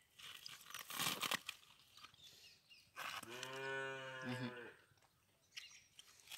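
A cow moos once, one steady call of about a second and a half starting about three seconds in. Before it comes a crisp tearing rustle as layers of coconut heart of palm are peeled apart by hand.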